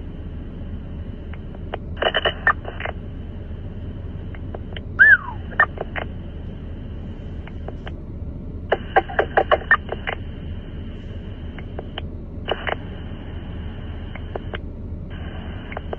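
Police radio scanner audio: steady static hiss that keys on and off, with clusters of clicks and garbled crackle as units key up. There is a short falling chirp about five seconds in.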